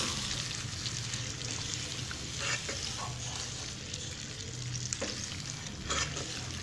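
Chicken and yogurt sizzling in oil in a nonstick kadai as a spatula stirs them, with a few scrapes and knocks of the spatula against the pan.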